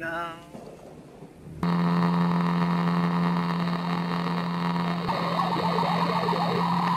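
A steady, low droning hum with many even overtones starts abruptly and holds level, with a crackling, chattering noise joining it about five seconds in.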